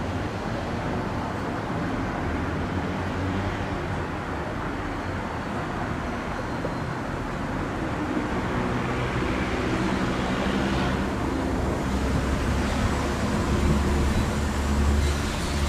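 Diesel freight locomotives running in a four-unit lash-up: a low engine drone over a steady rushing background, growing louder toward the end as the train approaches.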